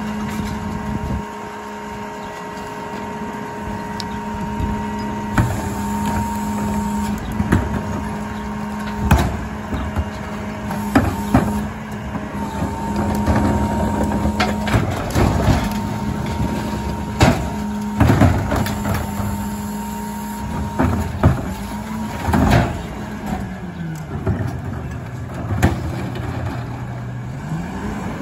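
Rear-loader garbage truck working a recycling pickup: the engine runs steadily with a constant whine above it while recyclables are dumped into the hopper, with repeated loud clattering crashes. Near the end the engine speed drops and then rises again.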